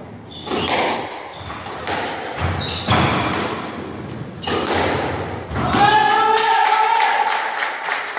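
Squash rally in an echoing court: the ball knocks off rackets and walls several times. As the rally ends, a long shout rises, followed by quick clapping from the gallery.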